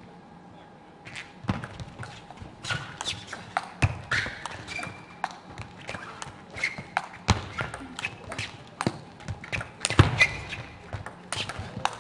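A table tennis rally: the celluloid ball is struck by rubber-faced paddles and bounces on the table, in fast, uneven clicks and knocks that begin about a second in. Short squeaks from the players' shoes on the court floor come between the hits.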